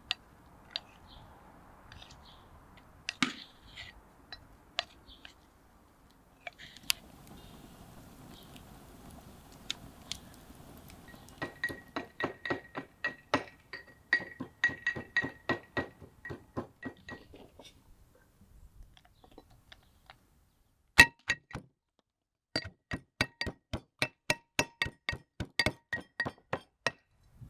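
Brass mortar and pestle: a few light scrapes and clinks, then two runs of quick pestle strikes, about four a second, each with a bright metallic ring. The second run starts with one especially loud strike.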